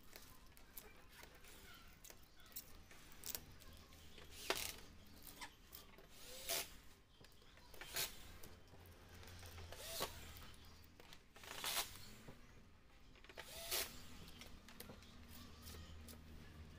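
Short scraping and rubbing strokes on the glass of an LCD TV panel, about one every one to two seconds, as the old polarizer film and its glue are cleaned off. A low steady hum runs underneath.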